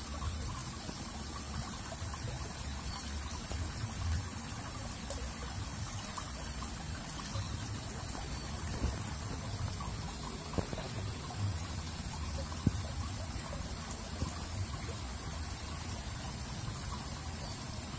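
Water trickling and flowing steadily along a concrete drainage channel, with a few faint clicks.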